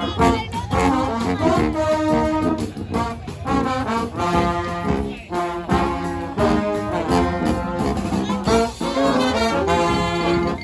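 Brass band playing live: loud horn phrases with short breaks between them.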